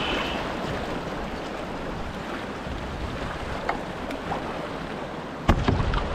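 Water hissing and washing along a V1 outrigger canoe's hull as it passes close to rocks with small waves washing over them, with a few faint splashes. About five and a half seconds in, wind buffeting the microphone starts up suddenly and drowns it in a low rumble.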